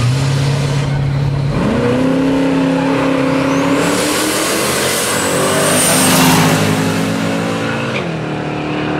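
Chevrolet drag cars' engines revving hard at the start line, holding a steady note, then climbing sharply in pitch as they launch and accelerate away, with tyre squeal at full throttle. The engine note drops near the end as the cars lift off.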